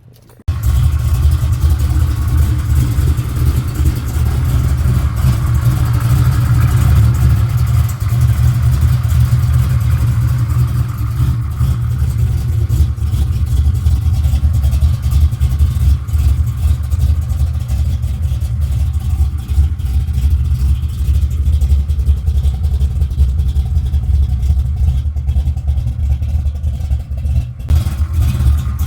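Shafiroff big-block V8 in a 1970 Chevelle firing up about half a second in, then running with a loud, heavy idle.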